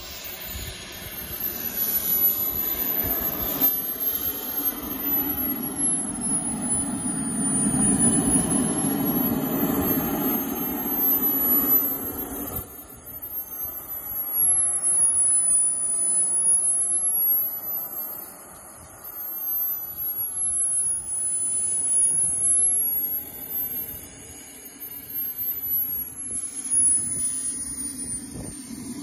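Small jet turbine of a 1:5 scale BVM F-16 model jet running as the jet lands and taxis in: a high whine that slowly rises and falls with the throttle over a rushing exhaust. The rush is strongest around touchdown, drops abruptly about halfway through, then swells and eases again while taxiing.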